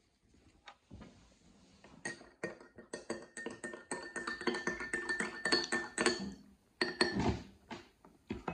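A spoon stirring water in a glass mug, clinking rapidly against the glass, which rings with each strike. The clinking runs for about four seconds, and a few separate clinks follow near the end.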